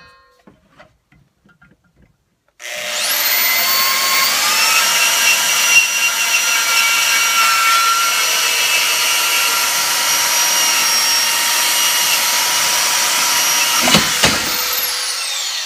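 Portable band saw cutting through steel strut channel. The motor spins up with a rising whine a few seconds in, then runs steadily with a ringing tone as the blade cuts the steel. A clunk comes near the end, and the motor winds down with a falling whine.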